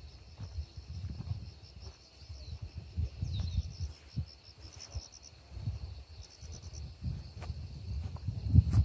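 Outdoor hilltop ambience: an uneven low rumble of wind on the phone's microphone, with faint rapid insect chirping and a few short bird calls high above it.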